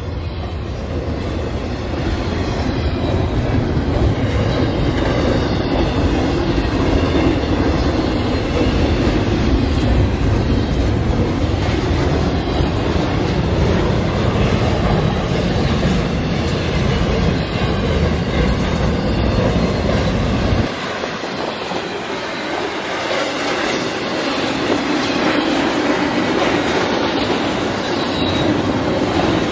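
Freight train cars rolling past close by: the steady rumble and clatter of an intermodal train's trailer flatcars and double-stack well cars, wheels clicking over the rail joints. A deep low rumble underneath stops suddenly about two-thirds of the way through, leaving the lighter rolling and clatter of the cars.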